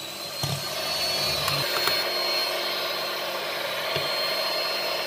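Electric hand mixer running at a steady speed, its beaters whipping cream and milk in a glass bowl, with a steady high motor whine.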